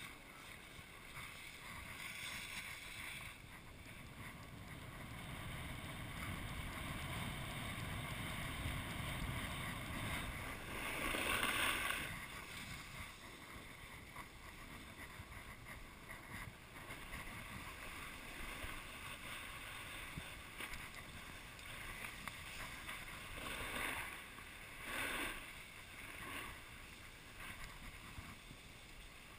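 Snowboard sliding down a groomed slope: the base and edges scraping over packed snow in a steady hiss, with a louder scrape about eleven seconds in and shorter ones near twenty-five seconds, and wind rumbling on the microphone.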